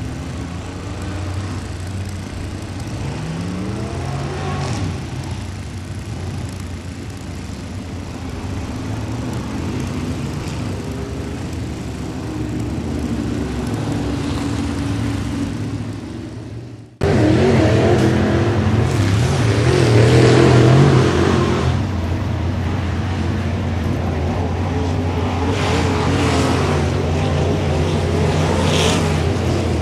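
Dirt late model race car's 602 crate V8 running at low speed, its revs rising and falling a few seconds in. About halfway through the sound breaks off abruptly and comes back louder and closer, the engine running on with its revs wavering.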